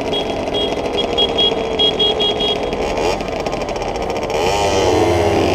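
Several 50cc geared mopeds' small two-stroke engines running together, with a rev that rises and falls near the end. A string of short high beeps sounds during the first half.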